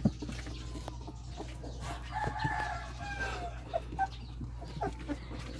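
Puppies crawling on a wooden floor, with small taps and scrapes throughout and a sharper knock at the start. About two seconds in comes a single drawn-out animal call, lasting about a second and a half and falling slightly at the end.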